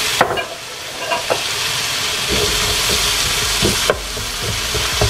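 Sliced onions sizzling in melted butter in a frying pan on medium-high heat, stirred with a wooden spoon that knocks against the pan a few times. The sizzle drops to a lower hiss about four seconds in.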